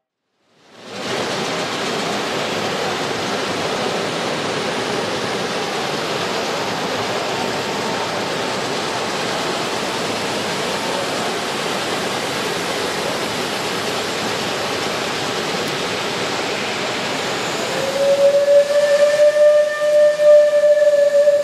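Live-steam model locomotive letting off steam in a steady hiss that starts about a second in. About 18 seconds in its steam whistle sounds one long, steady note that is still going at the end.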